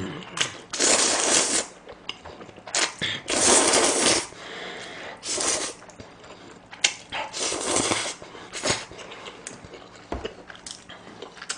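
A person slurping sauced instant stir-fried noodles from chopsticks, four long slurps about two seconds apart, with wet chewing clicks between them and near the end.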